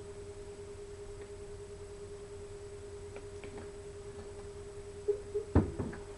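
Steady electrical hum, one even tone with a fainter higher one above it, with a few soft clicks and then a sharp knock about five and a half seconds in as items are handled at a wooden dresser.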